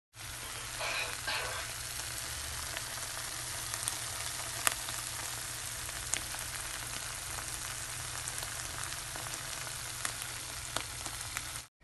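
Tuna sisig with an egg on top frying in a pan: a steady sizzle with sharp pops now and then. It stops abruptly near the end.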